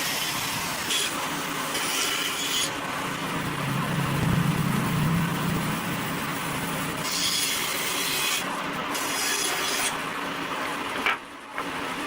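Steady noise of sapele timber being worked by a woodworking tool, with a short drop in level about eleven seconds in.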